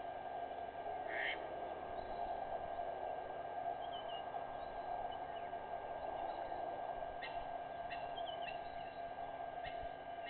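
Scattered short, high bird chirps, one about a second in and a cluster in the second half, over a steady drone of background noise.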